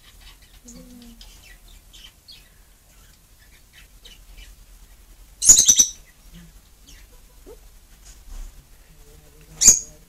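Lovebird chirping in short faint calls, with two loud, shrill calls, one about five and a half seconds in and a shorter one near the end.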